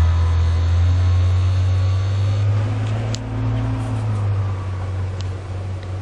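A moving vehicle's engine and road noise: a steady low rumble with a faint whine that slowly rises in pitch.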